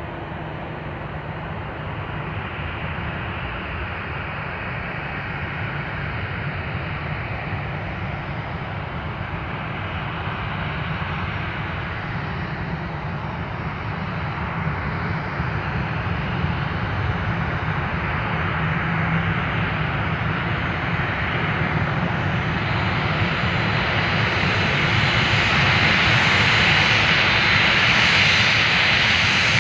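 Jet airliner engines, a continuous roar that grows steadily louder as the aircraft approaches, loudest near the end.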